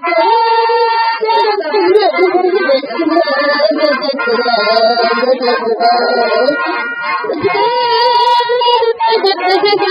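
A song playing, with voices singing a melody together over music.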